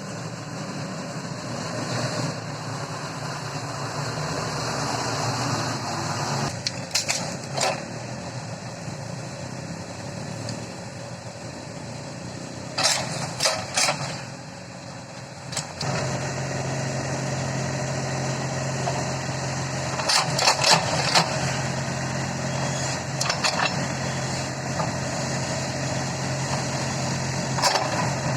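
Backhoe loader's diesel engine running, its hum steadying and growing stronger about halfway through, with several sharp clanks and knocks at intervals.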